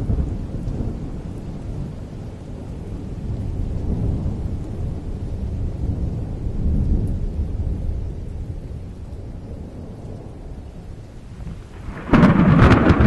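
Thunderstorm: low rolling thunder rumbling, swelling and easing off, over a faint hiss of rain, then a sudden loud, sharp thunderclap near the end.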